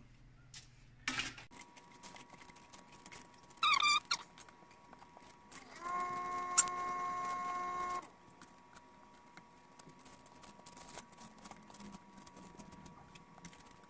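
Metal kitchen tongs clicking and tapping against a parchment-lined baking sheet as pieces of baked plantain are flipped, in many small scattered clicks. About six seconds in, a steady pitched tone sounds for about two seconds, and a fainter steady tone runs under most of the rest.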